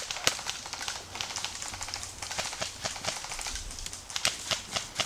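Airsoft guns firing in the woods: sharp, irregular cracks and clatter, with single loud shots near the start and several more about four to five seconds in, and runs of quicker, fainter ticks in between.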